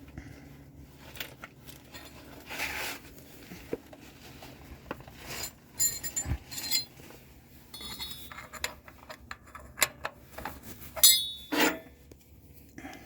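Metal hand tools clinking and scraping as the shift-linkage nut is taken off with a 15 mm wrench and the linkage is pulled from the transmission: scattered light clicks, with a few sharp ringing clinks about six seconds in and again near the end.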